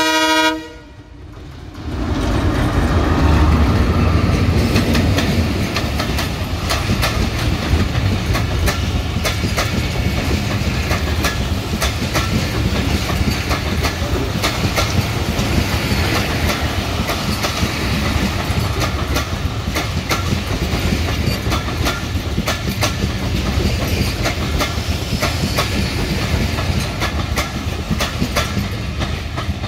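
A diesel locomotive's horn sounds for the last moment of a blast at the very start. From about two seconds in the locomotive rumbles past, and a long rake of passenger coaches follows, rolling by with a steady clickety-clack of wheels over the rail joints.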